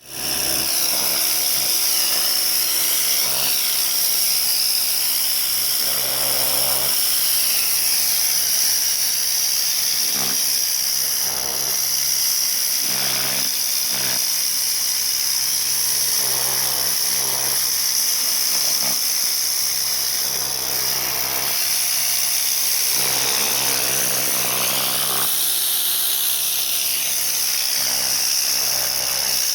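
Bosch Aquatak 135 electric pressure washer running, its jet hissing steadily on concrete over a low motor hum. The spray's tone swells and shifts repeatedly as the jet sweeps across the surface.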